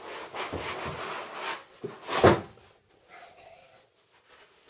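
Cardboard packaging rustling and scraping as an instrument is lifted out of its shipping box, with one louder knock a little over two seconds in; then it goes quieter.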